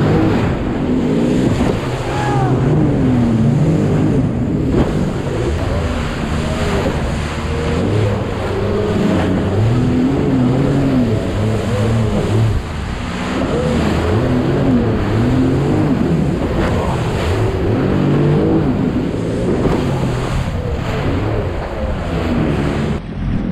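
Jet ski engine running hard, its pitch rising and falling over and over as the craft rides through waves, over a steady rush of water and wind.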